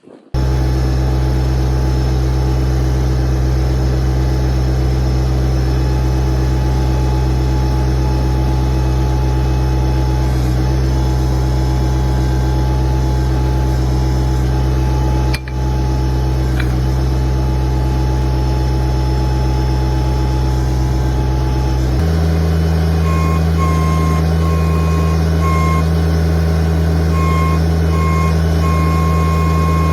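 Tractor engine running steadily to drive the backhoe. About 22 s in the engine note changes and an intermittent high beeping begins, sounding on and off for the rest of the time.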